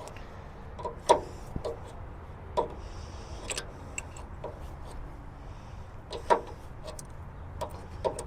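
Scattered metallic clinks and taps of adjustable wrenches on a forklift hydraulic line fitting as it is being loosened, the loudest about six seconds in, over a low steady hum.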